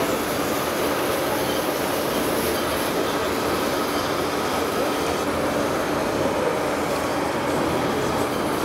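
Radio-controlled model heavy trucks driving: a steady mechanical rumble with a grinding whine and a faint continuous drone.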